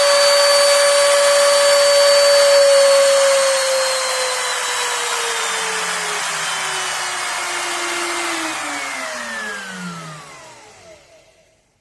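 AVID Power 6.5 amp, 1.25 HP compact router motor running with a steady high whine, then winding down from about three and a half seconds in, its pitch falling gradually until it spins to a stop near the end.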